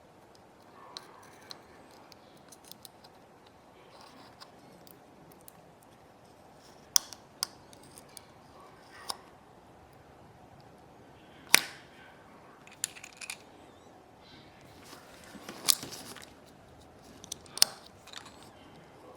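Small repair tools and tiny parts of an iPod nano clicking and tapping against each other and the work surface, in irregular sharp ticks with a louder snap about halfway through and two more near the end.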